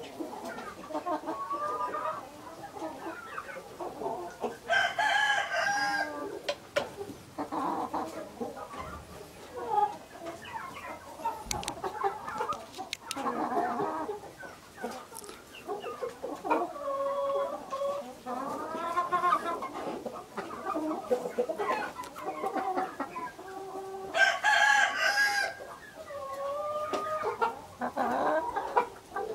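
A small flock of Marans and gold-laced Wyandotte chickens clucking throughout, with a rooster crowing twice, about five seconds in and again near the end.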